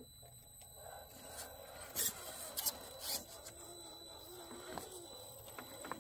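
Radio-controlled rock crawler climbing over rocks: a grinding scrape of its tyres and drivetrain, with three sharp knocks of the truck on stone around two to three seconds in, and a wavering electric-motor whine from about halfway.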